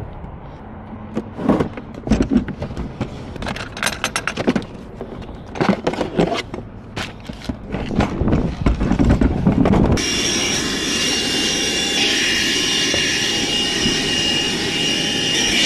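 A run of knocks and rustles, then about ten seconds in a small handheld vacuum cleaner switches on and runs steadily with a high whine, cleaning the car's carpet.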